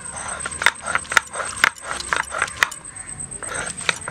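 Stone roller knocking and grinding on a flat grinding stone (shil-nora) as dried red chillies are crushed. It makes sharp, gritty clacks about twice a second.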